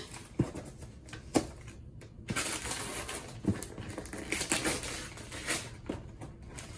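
Gift-wrapping paper being torn and crumpled off a cardboard box: a run of papery rips and crinkles, with a few sharp ticks in the first half and denser crackling from about two seconds in.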